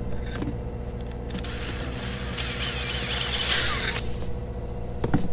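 A power tool cutting into a fiberglass hatch coaming in one burst of about two and a half seconds, loudest just before it stops. A sharp knock follows near the end.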